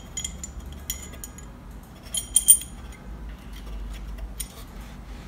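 Small metal bottle-filler fittings clicking and clinking together in the hands as a nut is put onto a chrome tube. A few brief bright ringing clinks come in the first second, and a louder cluster comes about two and a half seconds in.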